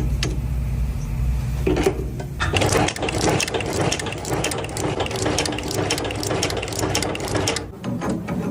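A machine running with a low hum, then a dense mechanical rattle of rapid clicks from about two seconds in that stops shortly before the end.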